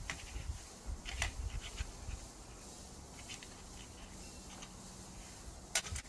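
Light clicks and taps of small metal parts being handled as the back plate of a Seagull outboard's throttle assembly is refitted, a small cluster about a second in and the sharpest click near the end, over a faint low hum.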